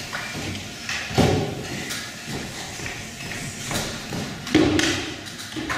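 Thuds and light knocks of actors moving about a stage, echoing in a hall, with the loudest thuds about a second in and again near the end.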